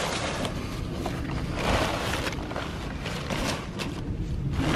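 Brown packing paper and cardboard rustling and crinkling as wooden cedar panels are lifted out of a shipping box, in several bursts, over a steady rumble of wind on the microphone.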